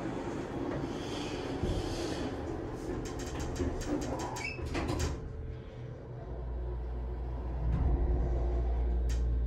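Otis Series 1 hydraulic elevator doors sliding shut with a run of rattling clicks. About six seconds in, a low steady hum starts as the car begins to move, and it grows louder near the end.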